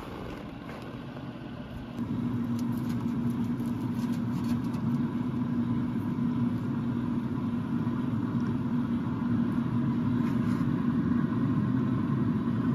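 Pellet smoker's fan running with a steady hum, which gets louder about two seconds in.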